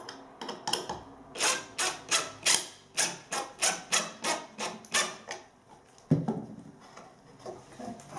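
A hand tool rubbed back and forth on wood in quick, even strokes, about three a second for some four seconds, followed by a single knock about six seconds in.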